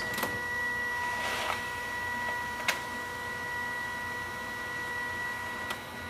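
Brother MFC-J4535DW all-in-one printer's scanner mechanism running at the start of a scan job: a steady motor whine of several tones, with a sharp click a little under three seconds in and another near the end.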